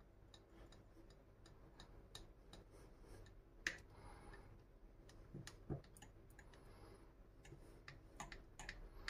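Metal teaspoon stirring a thick honey and pollen mixture in a small glass jar: faint, irregular light clicks of the spoon against the glass, a couple of them louder.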